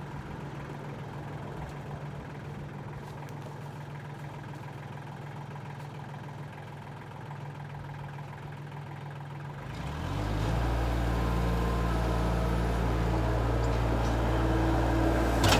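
Blue compact tractor's engine idling steadily, then throttled up about two-thirds of the way through, running louder as the tractor drives off with its front loader.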